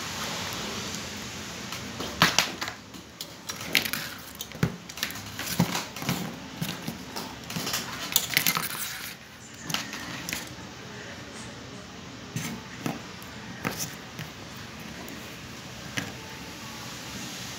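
Irregular clicks, taps and light rattles of small plastic and metal parts being handled: a power-window regulator's steel cable, spring tensioner and plastic cable ends being fitted together by hand. The clicking is busy for the first half and thins out to occasional taps after about ten seconds.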